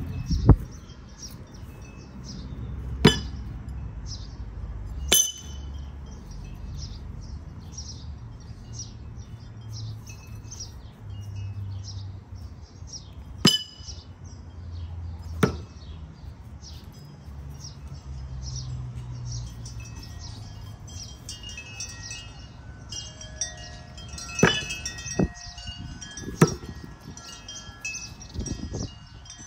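Wind chimes tinkling continuously. About eight sharp thunks of thrown knives striking a wooden target come in three groups: near the start, about halfway, and near the end.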